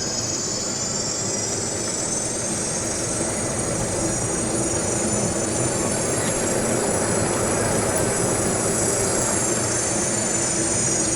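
Electric shuttle vehicle in motion: a high motor whine that climbs slowly as it gathers speed and eases back down near the end, over a steady rumble of rolling and road noise.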